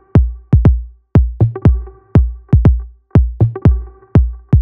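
Electronic dance music: a heavy drum-machine kick beat about twice a second over a held synth chord.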